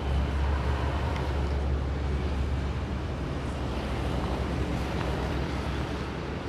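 Wind buffeting the microphone: a steady low rumble under an even rushing noise.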